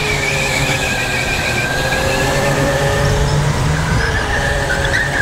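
Go-kart running at speed, heard from the driver's seat: a steady low running noise with high, wavering squeals of the tyres sliding through corners.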